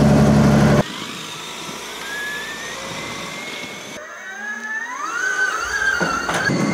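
A helicopter running close by, with a steady low drone, cuts off abruptly under a second in. It is followed by whining tones that climb in pitch twice, the second time wavering, while the sound grows louder toward the end.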